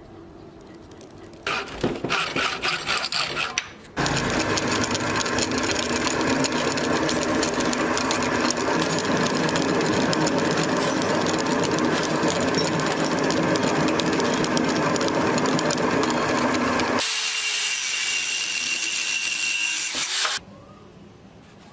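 Power tool working on a knife in three runs: a short chattering run about two seconds in, then a long steady run, then a shorter run with a high whine that cuts off abruptly near the end.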